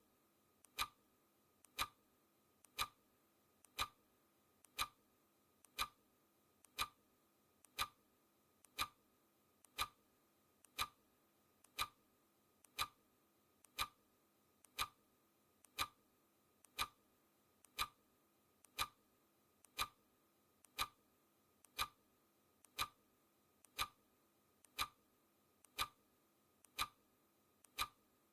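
Clock ticking, one tick each second, steady and even; each tick is a soft click followed closely by a louder one.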